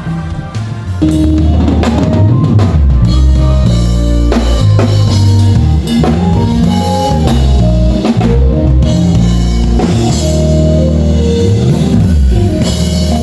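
Live band playing loud at a sound check, with the drum kit (kick and snare) to the fore over a heavy low bass line. The band comes in at full volume about a second in.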